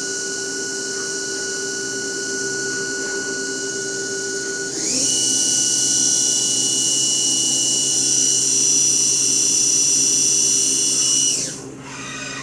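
Haas CNC milling machine's spindle running while machining an aluminum part: a steady whine with a high hiss that steps up in pitch and gets louder about five seconds in as the spindle speeds up, then winds down near the end as the spindle stops.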